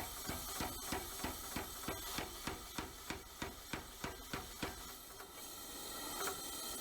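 150-pound power hammer striking in a fast, even rhythm of about four to five blows a second while cutting partway through a hot steel billet. The blows stop about five seconds in, leaving a steadier machine noise.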